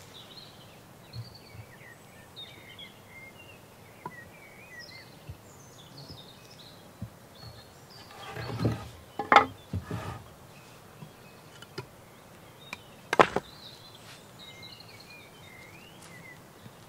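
Small birds chirping throughout, while a wooden beam and flat stones are shifted and knocked together as the beam is set on a stone stack. There is a scraping rustle about halfway through and sharp knocks then and a few seconds later.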